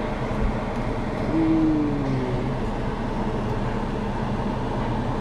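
Steady mechanical hum with a constant low drone. A short falling tone rises above it about a second and a half in.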